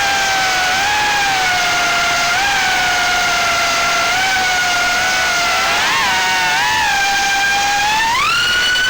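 Brushless motors and 3-inch propellers of an FPV quadcopter (GEPRC 1206 4500kv motors on 4S) whining in flight. The pitch wavers up and down with the throttle and climbs sharply near the end.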